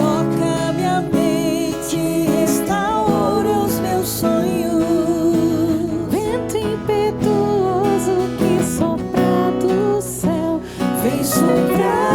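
Catholic worship song performed live: voices singing a melody over strummed acoustic guitar.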